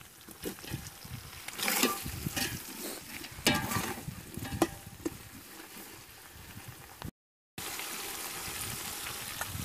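Oil sizzling in a cooking pan, with a few sharp clinks of a utensil in the first half. The sound cuts out for half a second, then a steady sizzle continues.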